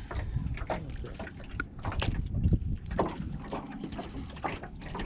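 Wind rumbling on the microphone aboard a fishing boat, with scattered light knocks and clicks.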